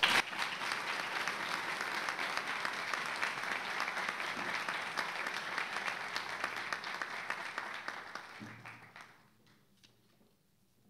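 Audience applauding, many hands clapping densely, then dying away about nine seconds in.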